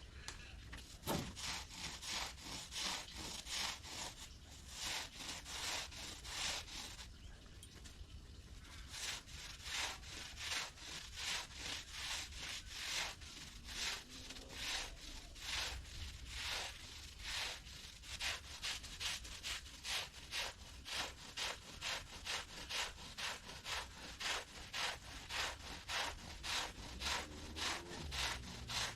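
Carpet being scrubbed in rhythmic rasping back-and-forth strokes, about two a second, with a short pause about a third of the way in.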